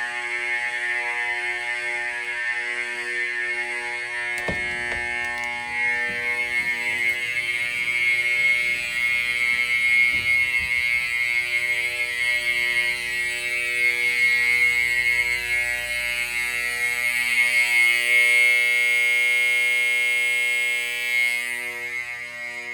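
Vintage electromechanical fire alarm horns buzzing continuously in full alarm, loud, with lower steady tones coming and going beneath the buzz. The buzz grows louder about eighteen seconds in, and its upper part cuts off sharply about a second and a half before the end.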